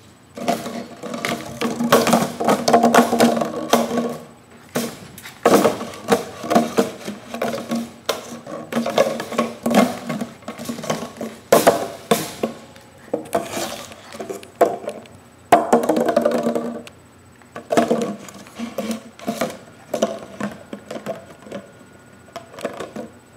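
An empty plastic Gatorade bottle crackling, crunching and clattering on a tile floor as a puppy chews, pounces on and tosses it, in irregular bursts of sharp crackles and knocks. Bursts of a low, even-pitched tone come and go in the same moments.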